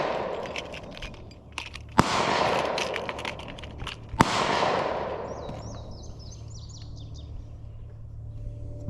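Two gunshots about two seconds apart, each cracking sharply and then echoing off for about a second. After the second shot a bird chirps in the background.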